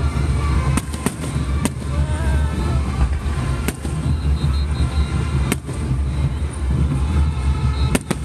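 Aerial fireworks bursting overhead: several sharp bangs at irregular intervals, a second or two apart, over a continuous low rumble.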